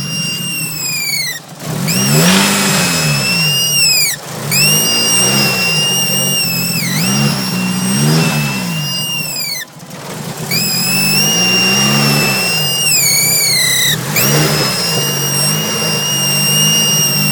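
Nissan SR20DET turbocharged four-cylinder engine blipped up and down repeatedly, with a loud high-pitched whine over it that sounds like a supercharger or a dentist's drill. The whine is new since an ISIS intake manifold was fitted, and it cuts out briefly three or four times.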